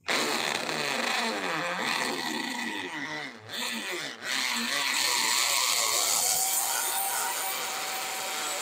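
DeWalt DWD520 10-amp corded hammer drill boring a 5/32-inch masonry bit into a hard new clay brick. It starts suddenly and runs throughout, with two brief dips in level about three and a half and four seconds in, then settles into a steadier pitch.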